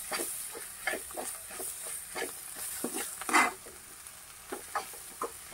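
A slotted spoon scraping and stirring bitter gourd and onions frying in oil in a metal pan, over a steady sizzle. The scrapes come quick and irregular, about three a second, the loudest about three and a half seconds in.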